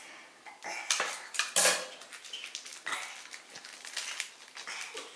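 Small hard plastic objects handled and knocked together on a table, giving a handful of sharp clicks and clattering knocks, the loudest about one and a half seconds in.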